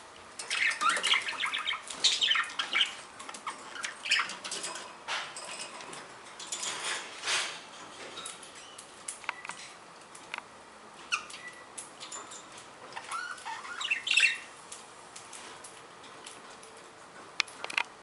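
Male budgerigar chirping and chattering in short bursts of quick, gliding notes, mixed with scattered sharp clicks. The chirps are loudest in the first few seconds and again near the three-quarter mark.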